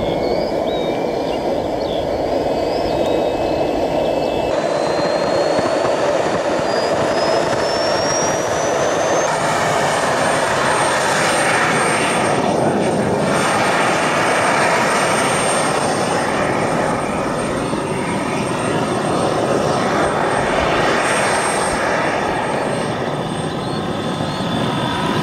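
Model jet's gas turbine engine running on the ground: a loud steady rush with a high whine that climbs in pitch for about five seconds, then holds steady.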